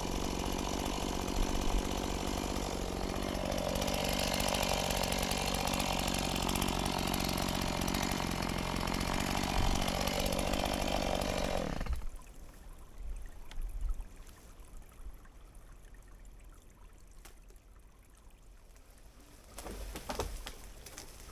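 Stihl MS180 two-stroke chainsaw running in a cut, its engine pitch sagging under load and picking up again twice, then it cuts off about halfway through. Faint knocks and rustles follow.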